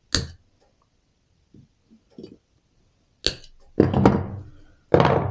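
A sharp snip as wire is cut with hand wire cutters, freeing the finished wire hose clamp from its tensioning tool. Another sharp click about three seconds in is followed by two louder knocks of metal tools handled on a workbench.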